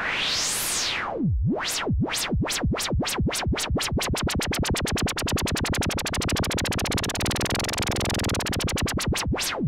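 White noise from the FabFilter One software synth through a resonant filter whose cutoff is swept up and down by the LFO, the LFO rate raised steadily so that the sweeps come faster and faster, from one slow sweep to a rapid flutter: a synth riser effect for builds. It stops abruptly at the end.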